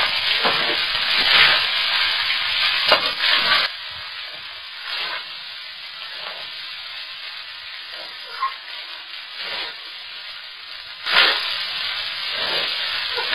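Boiled rice and vegetables sizzling in a steel wok while a metal spatula stirs and scrapes through it, mixing in the salt. The sound is louder for the first few seconds and again near the end, and quieter in between with a few scrapes.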